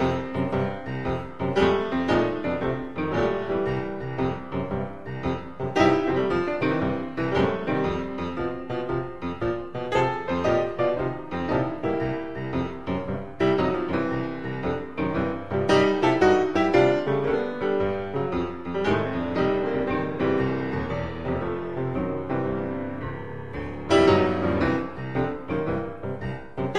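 Piano music playing continuously, with many quick notes.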